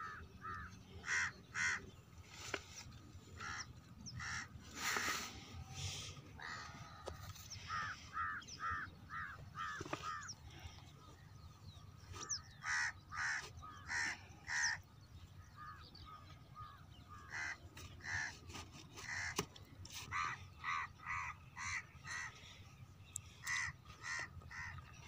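Crows cawing in repeated runs of several calls each, over the low steady running of an 8 HP Rajkot diesel pumpset engine pumping water.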